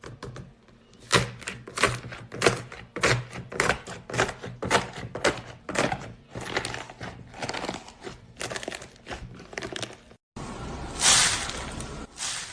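Slime being pressed and squeezed by hand, giving repeated crackling, crunchy pops about two a second. After a cut near the end comes a denser, continuous crackle.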